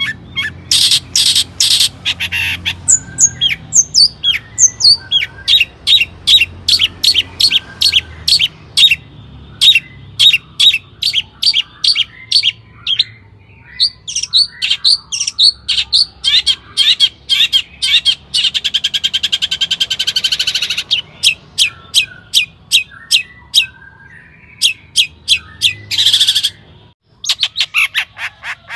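Long-tailed shrike (cendet) singing hard: rapid runs of sharp, repeated high notes mixed with harsh chatter, and a buzzy rattling trill a little past the middle. The song breaks off briefly near the end, then starts again.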